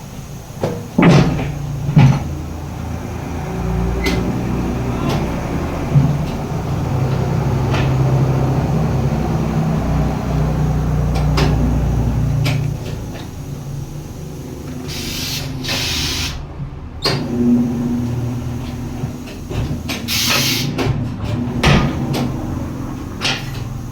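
Tire-shop work noise: scattered knocks and clatter of metal parts over a low steady motor hum that fades about halfway through, then two short bursts of hissing air.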